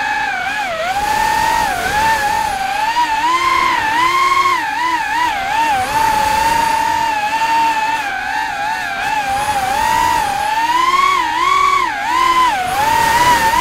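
Brushless motors and propellers of an FPV racing drone whining, the pitch sweeping up and down again and again as the throttle is worked.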